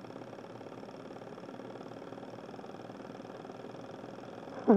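Small candle-heated Stirling engine running steadily, its piston and flywheel mechanism making a fast, even rhythmic running sound. A voice cuts in briefly at the very end.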